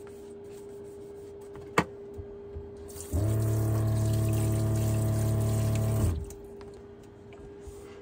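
Kitchen faucet in a truck camper turned on for about three seconds to rinse a knife, water splashing into a stainless steel sink while the camper's 12-volt water pump hums underneath; the sound starts and stops abruptly. Before that, a single sharp click of the knife against the sink.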